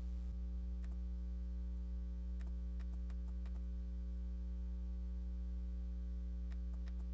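Steady electrical mains hum, with a handful of faint clicks from fingers pressing and tapping an Acer C720 Chromebook's trackpad, bunched about two and a half to three and a half seconds in and again near the end. The trackpad's click is still faulty.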